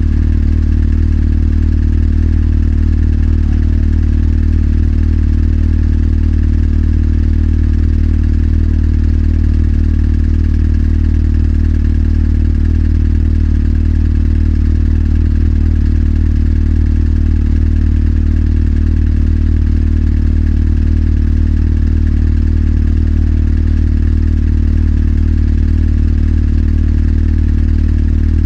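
Motorcycle engine running at one steady engine speed, a low steady drone with no revving or change in pitch.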